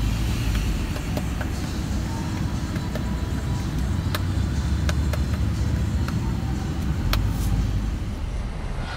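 Steady low rumble of outdoor city-street noise, with a few sharp clicks in the second half.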